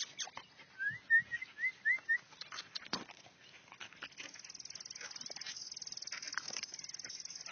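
Chow chow puppies giving a quick run of short, high, rising squeaks about a second in, amid light ticking and rustling of movement. From about four seconds in, a fast, high-pitched pulsing sound runs steadily underneath.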